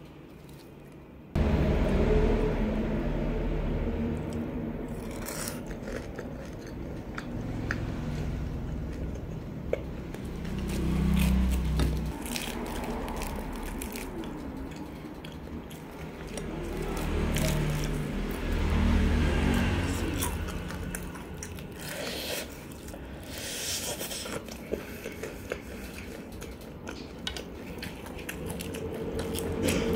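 Crunching of crispy battered fried chicken being pulled apart by hand and bitten, many short crackles, over background music that starts suddenly about a second in.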